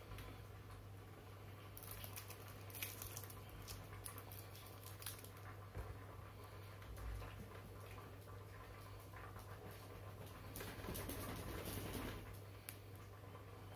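Faint, irregular patting and scratching from a Persian cat at play, with a denser flurry about three quarters of the way through, over a steady low hum.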